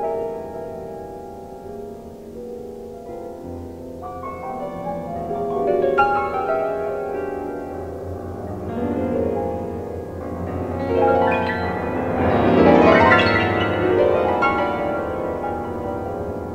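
Solo piano playing overlapping, sustained chords, with a sharp struck chord about six seconds in, building to a loud, dense peak about two-thirds of the way through and then thinning out.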